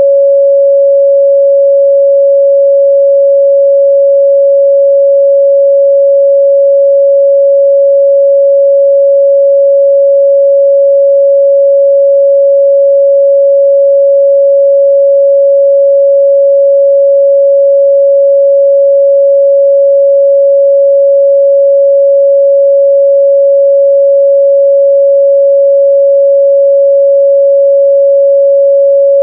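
A steady 557 Hz sine-wave test tone, one pure pitch held at a constant level, used for checking the midrange response of speakers and headphones.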